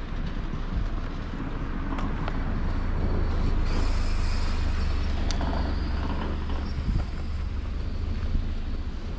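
Street traffic: cars driving along a town road, over a steady low rumble.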